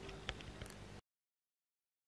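A few light clicks and a knock as the camera is handled, over faint room hum; then the sound cuts off to dead silence about halfway through.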